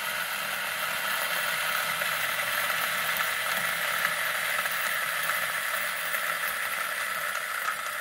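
Electric single-dose coffee grinder with 64mm Option-O Mizen Omni flat burrs grinding espresso beans: a steady motor whir with a grainy rasp. The grounds are clumping and coming out of the spout in bursts.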